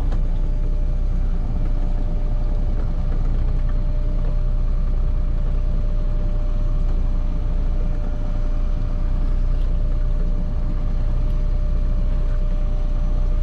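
A boat's engine running steadily: a low drone with a faint, constant whine held above it.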